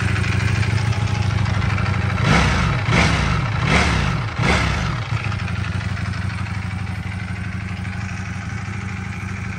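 Ducati Panigale V4S's 1103 cc V4 engine idling steadily, running for the first time from new, with four quick throttle blips about two to five seconds in before it settles back to idle.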